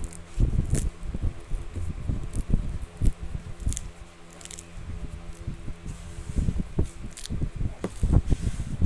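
Close-up chewing of betel nut: irregular soft squishy thumps with a few sharp crunching clicks, denser near the end, over a low steady hum.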